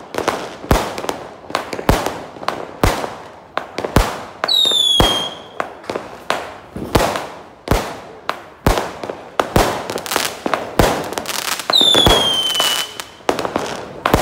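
Fireworks going off: sharp bangs about once a second with crackling between them, and twice a whistle that slides down in pitch.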